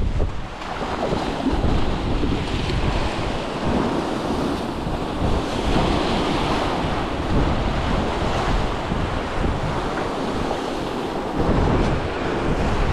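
Sea waves washing and breaking against the shore, with wind gusting on the microphone.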